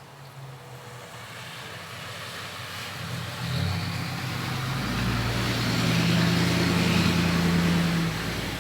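A car driving past on a wet street: its engine hum and tyre hiss grow steadily louder, are loudest about six to eight seconds in, and begin to fade at the end.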